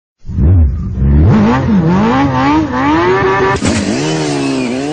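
A motorcycle-engine revving sound whose pitch climbs and drops several times like gear changes, then after a sharp click about three and a half seconds in falls and climbs steadily again.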